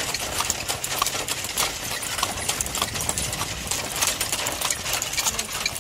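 Horse's hooves clip-clopping on the road, with the clatter of a horse-drawn carriage, heard from aboard the moving carriage.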